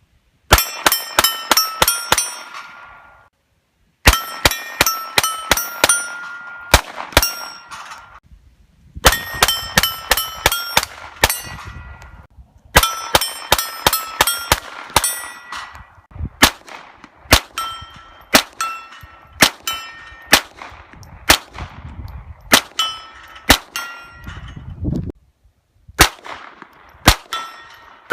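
Ruger MK III 22/45 .22 LR pistol firing in quick strings of several shots, about two or three a second. Each shot is followed by the ringing ping of a steel plate being hit. The strings break off abruptly several times.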